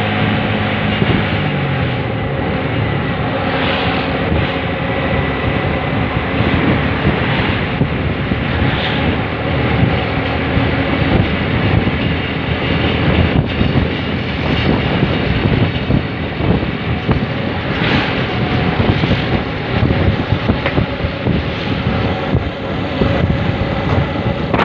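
Motor vehicle engine and road noise at driving speed, with wind noise on the microphone; the engine's pitch drops over the first couple of seconds.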